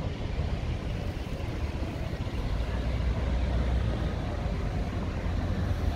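Steady low rumble of road traffic, with cars passing close by.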